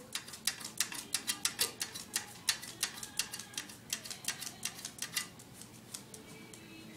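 A dog with its nose to the floor, mouthing at it: a quick run of sharp clicks, about five a second, thinning out to a few scattered clicks after about five seconds.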